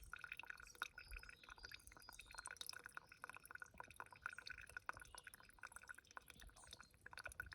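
Faint water dripping and trickling in quick irregular drops.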